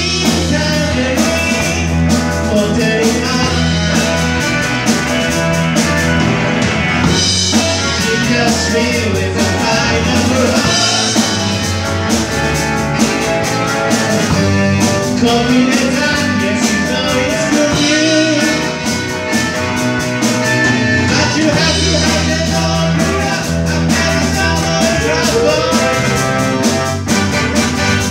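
Live rock band playing: drum kit, electric guitars, bass guitar and keyboards together, with singing.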